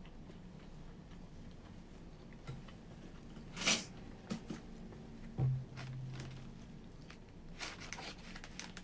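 Eating sounds: wooden chopsticks clicking and scraping against a plastic bento tray, with chewing. A louder click comes a little before the middle and a small cluster of clicks near the end, over a steady low room hum.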